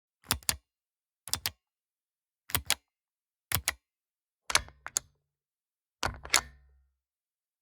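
Pushbutton switches pressed and released in turn: six double clicks, about a second apart. The last two presses are heavier, with a low thud under the clicks.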